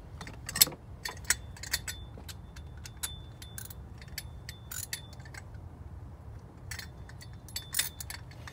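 Small metal hand tools clinking and clicking as they are handled: Torx bits and sockets knocking together in clusters of sharp clinks, some with a brief metallic ring.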